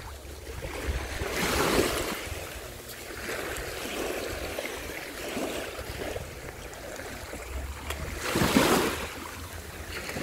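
Small waves lapping and washing onto a sandy shore, with two louder washes, about a second and a half in and near the end. Wind rumbles on the microphone underneath.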